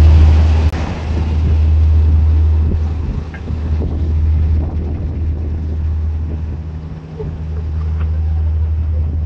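Wind buffeting the microphone: a deep rumble that swells and eases, with a hiss over it. A steady low hum comes in about six and a half seconds in.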